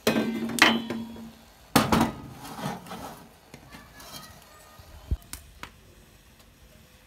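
Metal clanking at a wood-burning stove: the cast-iron stove-top lid is lifted off with a hook and set down, ringing briefly after the first hit, then a karahi clunks onto the stovetop. A few lighter taps follow.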